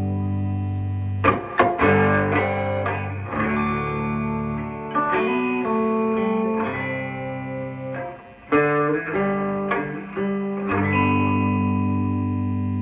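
Electric guitar played through a Fender Deluxe Reverb amp with its reverb on: ringing chords and single-note lines, with a few sharp strums.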